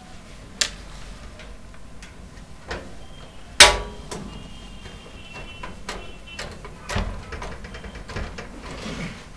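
Scattered metallic clicks and taps of a screwdriver and screws against a steel PC case as the power supply is screwed in. One loud metal knock a few seconds in rings briefly.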